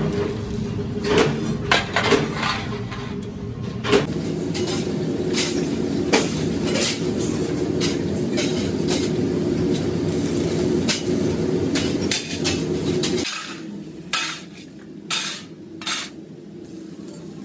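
Stick-welding arc with a steady buzz and hum, broken by sharp metal knocks, as a steel rod is welded onto a trowel blade. The buzz stops about three-quarters of the way through, leaving a few separate metal clanks.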